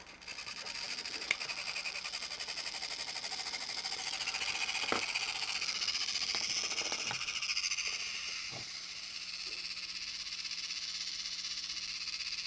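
Small electric motor and plastic gear train of a Radio Shack Robotic Banker's drive unit running with a steady high whirr, going through its cam-and-switch cycle, with a few light clicks along the way.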